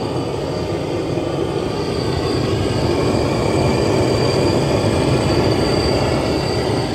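Gas blowtorch running steadily with a blue flame, preheating the hot-bulb head of a 1938 Lanz Bulldog's single-cylinder hot-bulb engine before starting.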